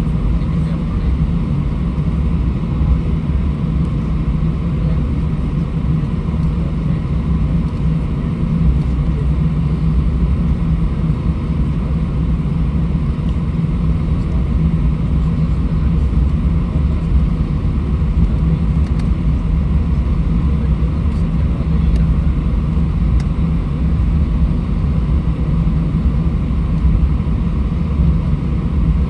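Airbus A320 cabin noise while taxiing: the steady low rumble of the engines at taxi power and the airframe rolling over the taxiway, heard inside the cabin.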